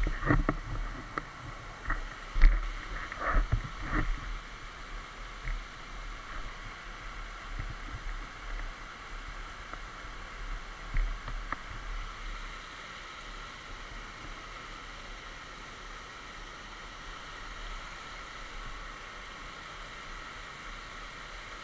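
Shallow rocky stream running over stones, a steady rush of water. A few sharp knocks and clatters in the first four seconds.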